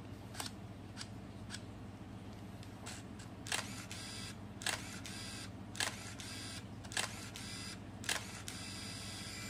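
Canon EOS Kiss film SLR firing its shutter over and over: a few lone clicks at first, then about one shot a second, each click followed by a short whir of the built-in motor winding the film on a frame.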